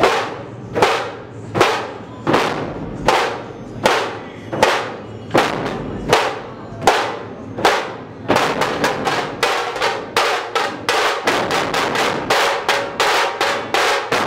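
A troupe of dhol barrel drums beaten together with sticks in a steady, heavy beat of about one stroke every three-quarters of a second. About eight seconds in it changes to a faster, denser rhythm of about four strokes a second.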